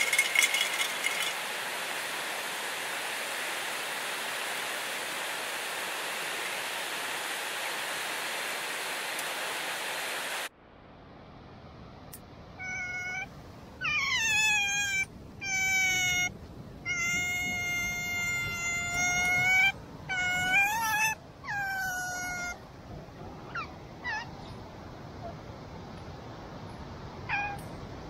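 Steady rushing of river water that cuts off suddenly about ten seconds in. Then comes a run of high, drawn-out animal calls, each gliding down in pitch, repeated for about ten seconds, with a few faint short calls near the end.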